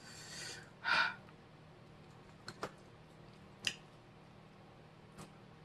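Breathy exhaling from a person eating spicy chips, strongest in a short puff about a second in, then a few faint mouth clicks, over a low steady hum.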